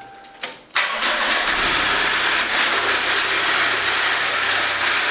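Toyota 5A-FE 1.5-litre four-cylinder engine starting about a second in and running with a loud, steady knocking racket. The owner suspects a slack, flapping timing belt, possibly a rattling tensioner pulley.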